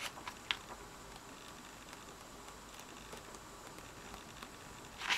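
Paper pages of an oracle card guidebook being leafed through by hand: faint page rustles and soft ticks at the start, a quiet stretch, then a few louder rustles near the end.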